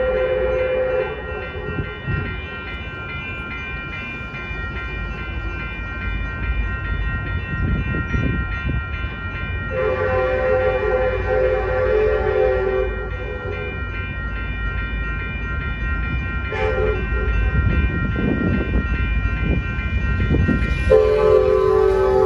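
Railroad crossing bell ringing steadily while an approaching Amtrak EMD F59PHI locomotive sounds its horn for the crossing: a brief blast at the start, a long one about ten seconds in, a short one around seventeen seconds, and another long blast near the end. The locomotive's rumble grows louder as it nears.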